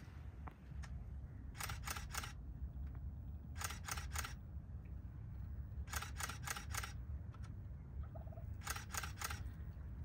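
Camera shutter firing in short bursts of four or five rapid clicks, a burst about every two seconds, over a low steady rumble.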